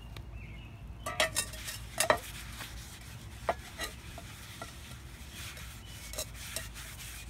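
Paper towel rubbing vegetable oil around the inside of a bare cast iron skillet, the first wipe-down of seasoning a freshly fire-stripped pan. Metal tongs click against the pan's handle a few times, most sharply about one and two seconds in.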